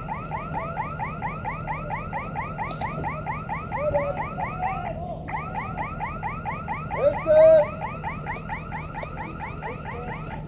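Electronic alarm siren sounding a fast warble of rising whoops, about four a second, breaking off briefly about five seconds in and then running on. A loud shout cuts in about seven seconds in.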